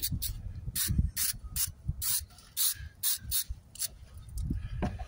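Stiff-bristled hand brush scrubbing brick and fresh mortar joints in short, scratchy strokes about twice a second, brushing away excess mortar after pointing.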